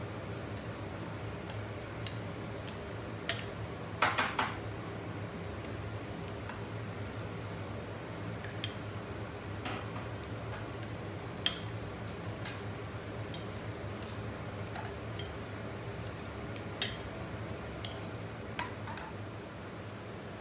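A metal fork clinking now and then against a ceramic bowl while beating eggs, a handful of sharp taps a few seconds apart, over a steady low hum.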